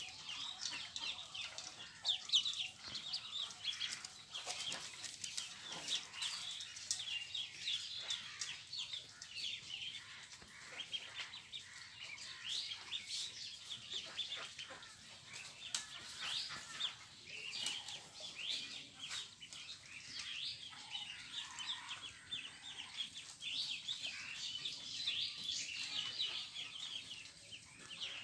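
A large crowd of young poultry peeping constantly: many short, high calls overlapping without a break, with scattered clicks and knocks among them.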